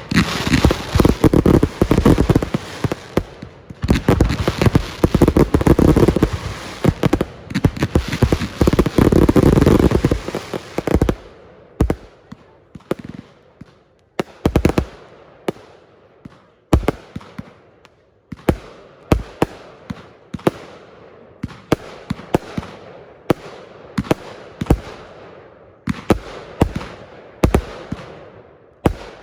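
Fireworks going off: a dense barrage of bangs and crackling for about the first ten seconds, then separate bangs about once or twice a second, each with a fading echo.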